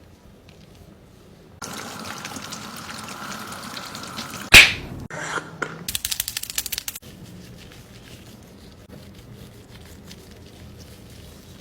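Water running or pouring for a few seconds, broken by one sharp loud knock about four and a half seconds in and followed by a quick run of clicks, then fainter noise.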